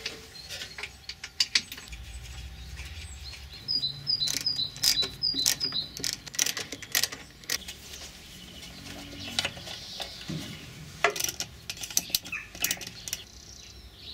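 Light metallic clicks, taps and knocks as a carburettor is fitted by hand to a small engine and its cables and fuel hose are hooked up. A short run of about six quick high chirps sounds about four to six seconds in.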